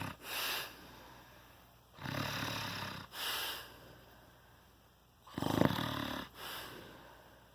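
A sleeping person snoring, a snoring the uploader calls shocking. There are two long snores about three seconds apart, each followed by a shorter breath out; the second snore, a little past halfway, is the loudest.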